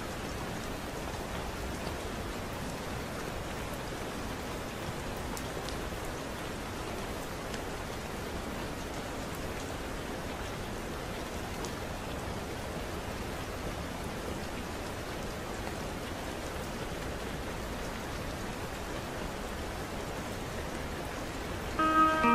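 Steady rain ambience, an even hiss of falling rain. Near the end, soft music with several held tones comes in over it.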